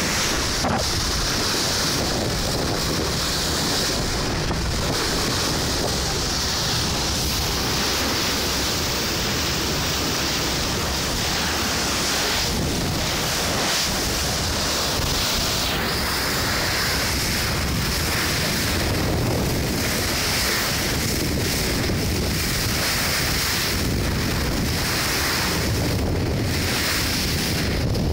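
Steady wind buffeting the microphone over the rush of sea water along the hull of a moving boat.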